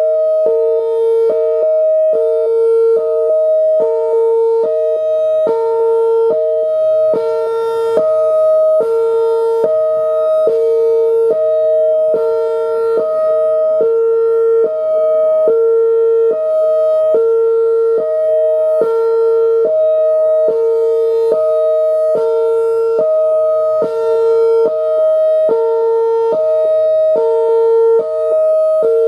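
Whelen Vortex R4 electronic outdoor warning siren sounding its Hi-Lo signal: a loud two-tone sound that steps back and forth between a high and a low pitch in a steady, even rhythm.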